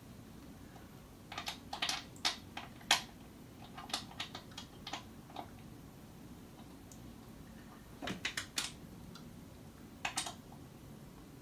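Light, irregular clicks and taps of screws and hardware being worked while tightening an office chair's seat fittings, in a long cluster from about one to five seconds in and two shorter ones near eight and ten seconds.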